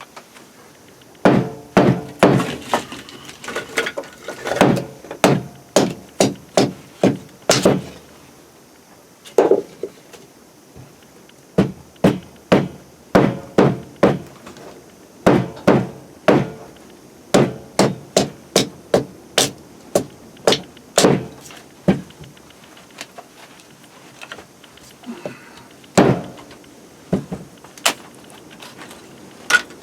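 Wood being chopped on a chopping block: sharp strikes in quick runs of several blows, with short pauses between, and a few single strikes near the end.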